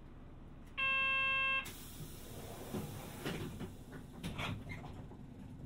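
A bus's door warning buzzer sounds once for under a second, then a hiss of air and a few clunks and knocks as the door closes.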